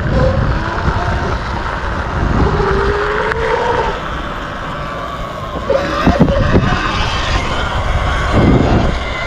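Wind buffeting the microphone while a Sur-Ron electric dirt bike is ridden along, with a steady low rumble and a few sharp knocks about six seconds in.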